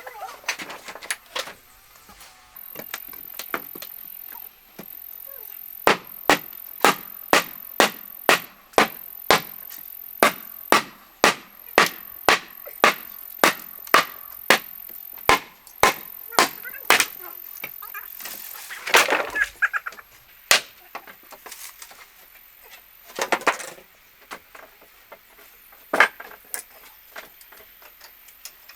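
A run of sharp knocks or strikes, about two a second for some ten seconds, followed by a few scattered knocks.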